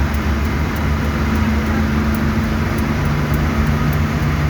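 Steady engine hum and road noise of a car driving.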